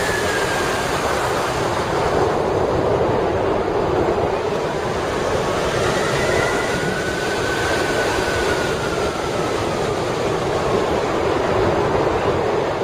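Steady rush of airflow over a glider-mounted camera's microphone as a hang glider flies, with a faint thin whistle that slowly wavers in pitch.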